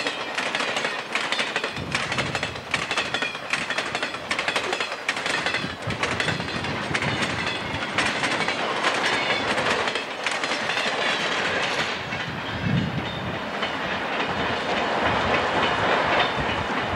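Freight cars of a Grand Trunk Western train passing close by, the wheels clacking over the rail joints. About twelve seconds in the sound changes to a steadier, duller rumble as the end of the train moves away.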